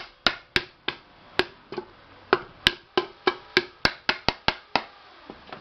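A block of wood striking the inside bottom of a pressure cooker, a quick series of about seventeen knocks at roughly three a second, each with a short ring. The strikes are flattening the cooker's bulged bottom so that it sits flat and stops wobbling.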